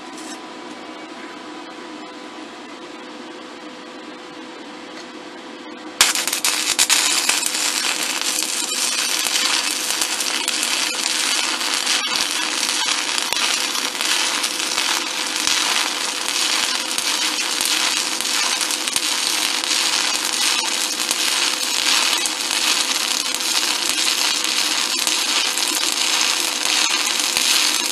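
Stick welding arc from a SanRex SanStick 160S inverter welder burning a 5/32-inch E7018 electrode. The arc strikes about six seconds in, sizzling and crackling steadily for about twenty seconds before cutting off at the end. It is a hot arc with a lot of dig, over a steady electrical hum.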